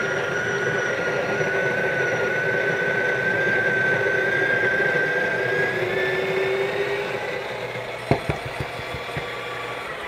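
Breville Barista Pro's built-in conical burr grinder running steadily, grinding an espresso dose into the portafilter. It gets quieter about seven seconds in, with a few knocks about eight seconds in.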